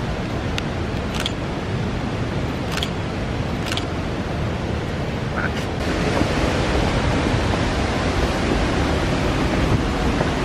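Steady rushing of water flowing through a rocky gorge, growing louder and brighter about six seconds in. A few sharp clicks come in the first half.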